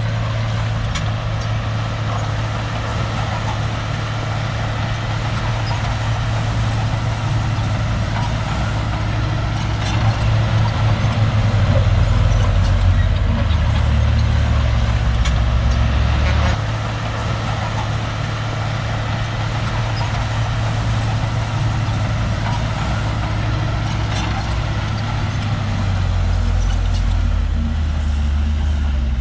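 Shantui crawler bulldozer's diesel engine running steadily under working load. It grows louder and deeper about a third of the way in, drops back suddenly just past halfway, and rises again near the end.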